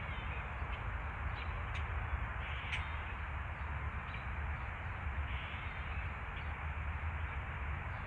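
A few short bird calls over a steady outdoor noise bed with a low rumble. Two brief sharp calls come about two and three seconds in, and a longer call follows a little after five seconds.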